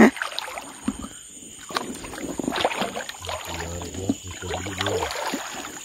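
Shallow water sloshing and lightly splashing as someone wades through it, in irregular stirrings rather than a steady flow.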